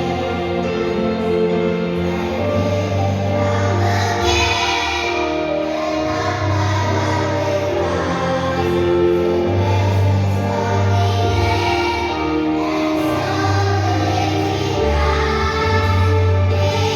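A choir singing a hymn-like piece in sustained chords, with held low bass notes underneath.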